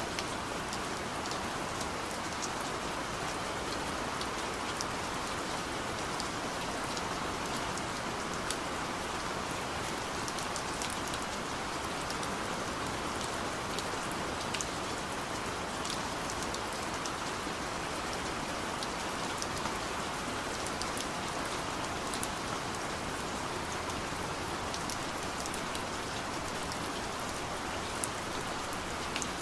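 Steady rainfall: an even hiss of rain on a surface, with scattered sharp ticks of individual drops.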